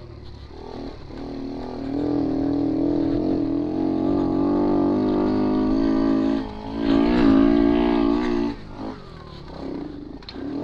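Romet Ogar 202's 50 cc single-cylinder moped engine pulling hard under throttle on a dirt track. The engine note climbs, briefly dips about six seconds in, climbs again, then eases off near the end before picking up once more. The engine is running much better now and no longer bogs down.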